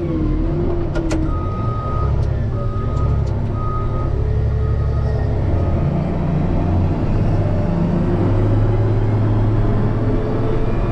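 Diesel engine of a snow-plowing machine running under load, with its backup alarm beeping about six times in the first five seconds as it reverses. About six seconds in, the engine revs up and grows louder, as when pushing forward with snow.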